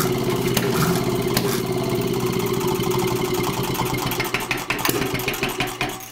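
A small engine running steadily, with a rattle of sharp clicks over it, getting quieter and more uneven near the end.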